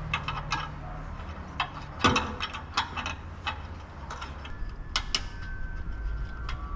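Irregular metallic clicks and clinks of hand tools at work, over a low steady hum.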